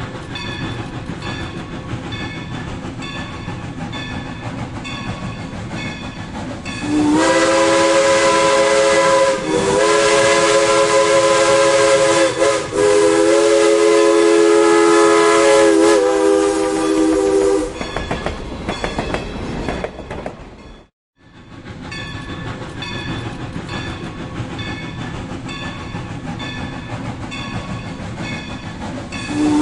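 Steam locomotive running with a steady rhythmic clatter. About seven seconds in, its chime whistle blows a loud chord of several notes for about ten seconds, dipping briefly a few times. The sound then cuts out for a moment near the middle, and the rhythmic clatter resumes.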